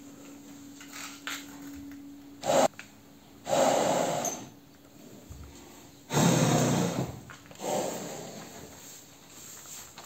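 Horses snorting: four noisy blasts of breath through the nostrils, the second and third the longest and loudest.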